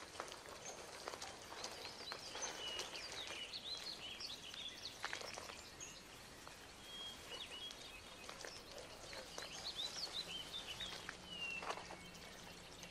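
Quiet natural ambience: scattered short bird chirps and calls over a soft hiss, with a few faint rustles from a mass of garter snakes moving over dry leaves and twigs.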